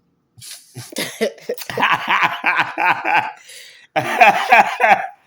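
Someone laughing in two bouts of rapid pulses, about four a second. The second bout, about four seconds in, is louder.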